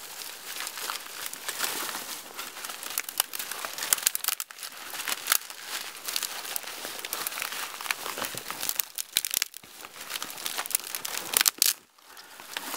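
A handful of fine dry twigs crackling and snapping as gloved hands crunch and squeeze them into a bundle: a dense run of small cracks and rustles, with brief pauses about four seconds in and near the end.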